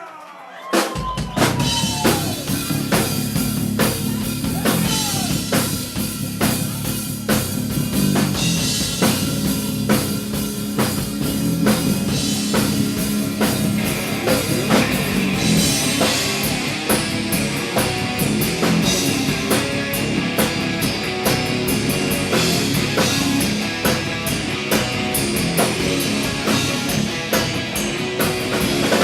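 A rock band playing live, an instrumental intro driven by a drum kit. It starts about a second in, and the cymbals get busier about halfway through. The sound is picked up by a camera's built-in microphone.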